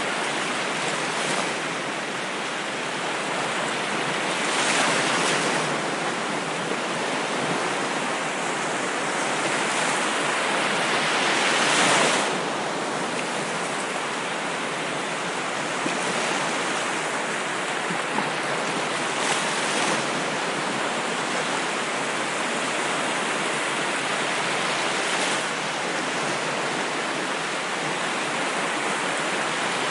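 Ocean waves washing onto a shore: a steady rush of surf that swells and ebbs, with the biggest waves breaking about five and twelve seconds in.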